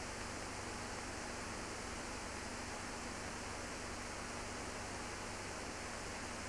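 Steady, even hiss with nothing else in it: the noise floor of a silent archival film transfer.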